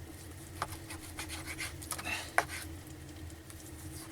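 Knife cutting raw meat on a board, with scattered light scrapes and knocks; the sharpest knock comes about two and a half seconds in.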